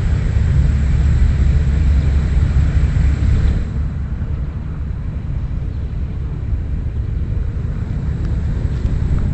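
Wind buffeting the microphone outdoors, a loud, uneven low rumble with a hiss over it that drops away about four seconds in.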